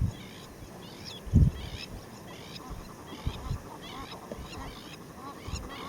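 A bird calling over and over, a short high call about twice a second, with a few dull low thumps, the loudest about a second and a half in.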